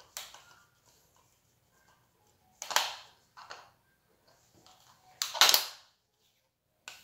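Machine screw being worked in the threaded screw-cutting hole of a pair of electrician's wire cutters, run through once more to clean a burr off the cut end: a few short, sudden metal scraping and crunching noises, the loudest about five seconds in.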